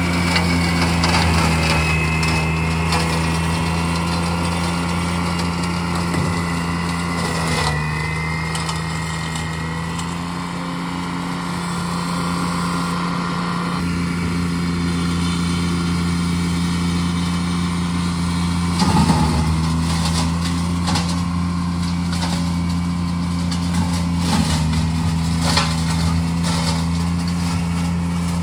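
Steiner 430 tractor's engine running steadily while driving its front-mounted Ventrac flail mower through weeds and brush. The engine note dips and recovers a couple of times under load, with occasional sharp ticks in the second half.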